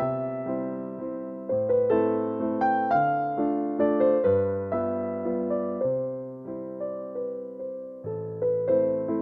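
Background music: a gentle keyboard melody of struck, fading notes over slow-changing bass notes.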